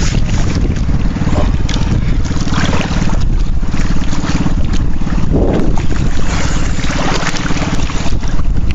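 Small outrigger boat's engine running steadily, with wind buffeting the microphone in a few gusts.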